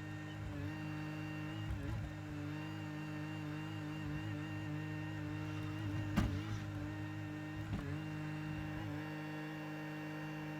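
Bobcat E42 mini excavator's diesel engine running steadily as it works, with a steady high whine over the engine drone. A sharp knock about six seconds in, and a smaller one about two seconds later.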